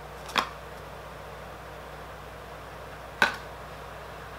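Two short, sharp clicks about three seconds apart over a low, steady room hum.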